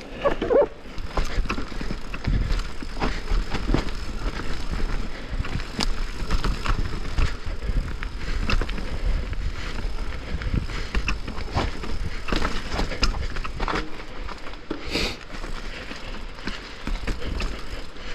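Downhill mountain bike rolling over a rough dirt trail: a steady low rumble of tyres on ground, broken by frequent irregular clatters and knocks from the bike as it hits bumps. There are brief hissing scrapes near the end.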